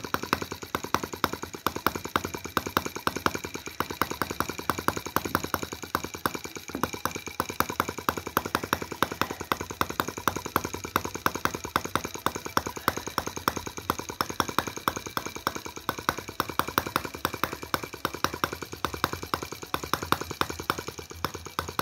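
Microcosm T26 model tractor's 1.9 cc four-stroke single-cylinder gasoline engine running slowly at idle, a quick, even train of firing strokes, with its ignition timed at top dead centre.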